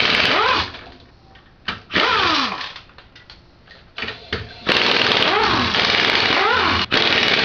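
Pneumatic impact wrench running in several bursts as it spins lug nuts off a Honda Civic's rear wheel. Each burst is a loud rattle whose whine falls in pitch as the motor winds down after the trigger is let go.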